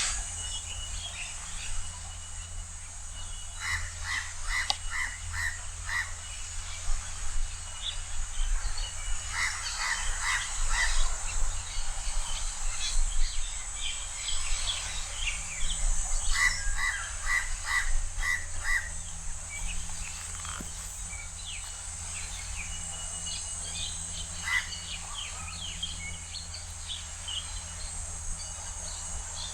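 House crow calling in quick runs of harsh, repeated caws: about five in a row, then four, then six, and later a single caw. Fainter, higher chirps, a steady high hiss and a low rumble sound underneath.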